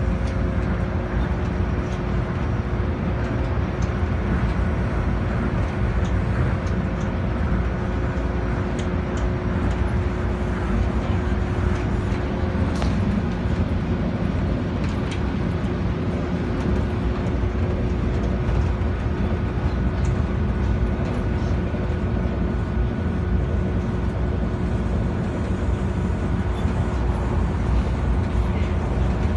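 Rubber-tyred Tokyo Monorail car in motion, heard from inside the car: steady running noise with a low rumble and a constant hum.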